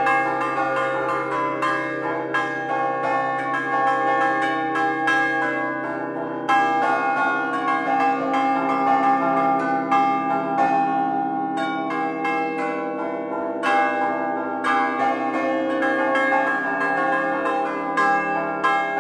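A peal of five church bells tuned in C, swung on wooden headstocks and rung by hand. The strikes come in quick, overlapping succession, each ringing on under the next, so the bells clang continuously.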